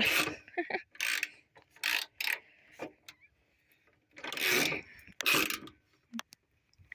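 Ratchet wrench working a bolt: a run of short, irregular ratcheting strokes, one of them longer about two-thirds of the way in, ending in a couple of small clicks.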